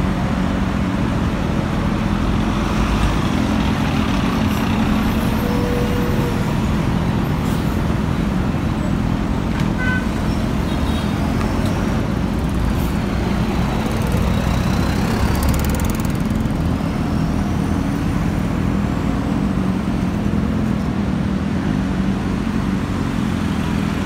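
City bus engine running as the bus pulls slowly away from the stop, over steady road traffic with passing motorbikes and cars.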